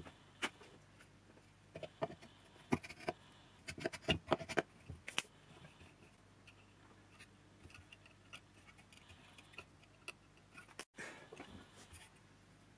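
Light clicks and taps as the parts of a Lotus Elise S1 cabin blower are handled and the fan wheel is fitted onto the motor shaft inside the blower housing. The clicks are thickest in the first five seconds and sparse after.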